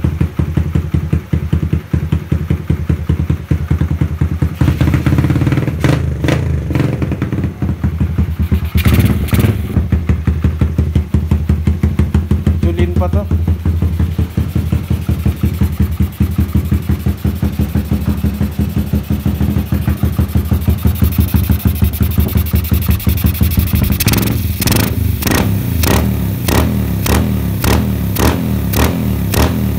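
Suzuki GD110's single-cylinder four-stroke engine running at idle on a newly fitted Mikuni PWK 28mm flatslide carburettor, a steady pulsing beat. Near the end a sharper regular ticking, about twice a second, comes through.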